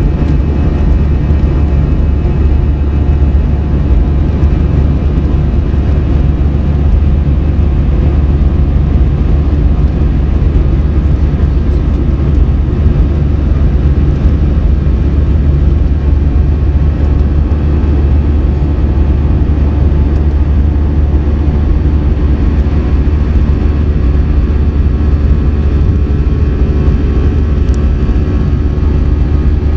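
Airbus A321 cabin noise during the climb after takeoff: a loud, steady low rumble with steady engine tones over it, heard from inside the cabin beside the wing.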